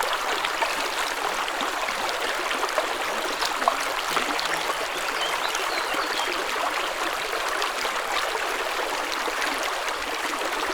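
Spring water running in a small stream: a steady trickle and babble of flowing water, dotted with small splashes.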